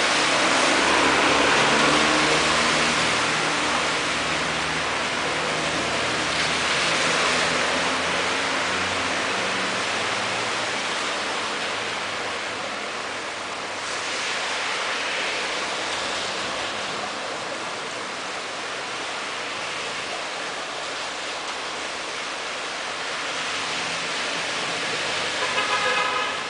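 Heavy storm rain and runoff making a steady wash of water noise, with cars driving through standing water on the flooded street: a taxi splashes past at the start, and engine hum and further swells of tyre spray come and go over the first half. Near the end a brief horn-like pitched tone sounds.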